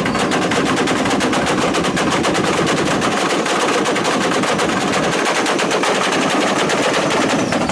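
Car engines held against two-step launch-control rev limiters, the exhaust firing a fast, unbroken string of loud pops and bangs like machine-gun fire.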